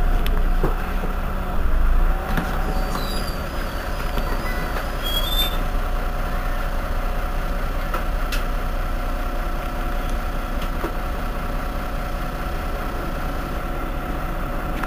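Irisbus Iveco Citelis 18 articulated city bus's diesel engine running steadily: a low rumble with a constant whine over it. The whine rises briefly about two seconds in, then holds steady.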